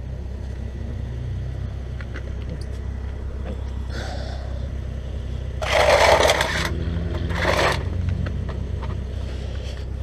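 A loose wheel and tire handled on a concrete driveway and set against a car's tire, with two loud rubbing scrapes a little past halfway, the first about a second long, the second shorter. A steady low rumble underlies it.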